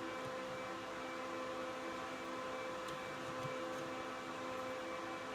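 Steady hum with several held tones and a light hiss, like a fan or motor running, with a faint click about three seconds in.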